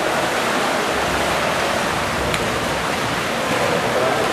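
Steady, echoing wash of water noise in an indoor pool hall, from kayaks paddled through choppy pool water, with a faint click about halfway through.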